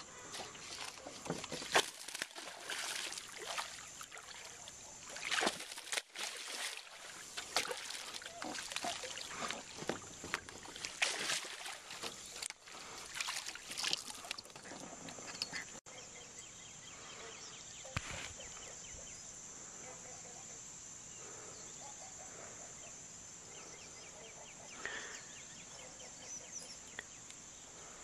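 A steady high insect chorus. Through roughly the first half come irregular splashes, pops and knocks as a topwater popping frog lure is worked across the water and the fishing tackle is handled. Later the sound settles to the insect buzz and quiet water.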